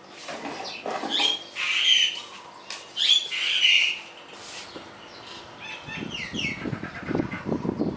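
Birds calling: a few loud harsh squawks in the first half, then falling calls and a run of low pulses near the end.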